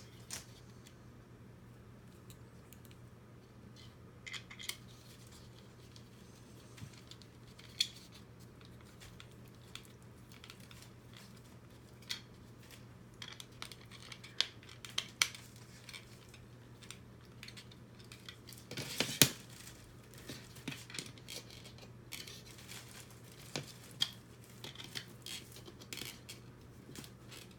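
Scattered light clicks, taps and clatter of small plastic robot-kit parts being handled and fitted together by hand, with a denser burst of clatter and the sharpest knock about two-thirds of the way through.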